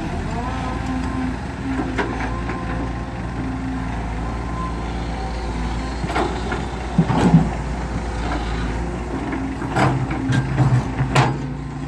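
Hydraulic excavator's diesel engine running under load, its pitch stepping up and down as the boom and bucket work. About six seconds in, a load of dirt clods thuds and clatters into the steel bed of the dump truck, and a few more sharp knocks follow near the end as the bucket goes back into the trench.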